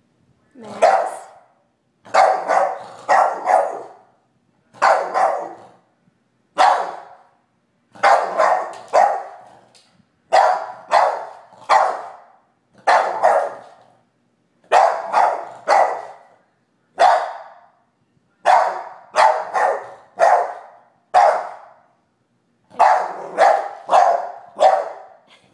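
Boston Terrier barking over and over in short sharp barks, often two or three in quick succession, starting about a second in. He is barking at a vacuum cleaner that he hates.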